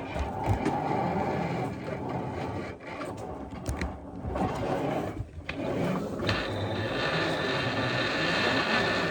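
Sawmill feed works being worked on: rubbing, scraping and clicking of the steel wire rope and its drum and sheaves, with a steady whirring joining about six seconds in.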